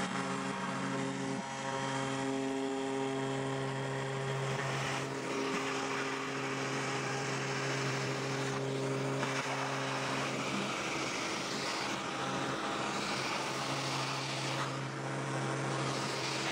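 CNC router running a straight-edge profile cut through a wooden sheet: a steady motor hum with the hiss of the bit cutting, the hiss swelling at times.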